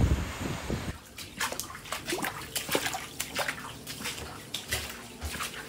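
Shallow floodwater on a tiled floor splashing and trickling, with many small irregular crackles of splashing water. The first second is the tail of wind and surf, the loudest part, cutting off suddenly.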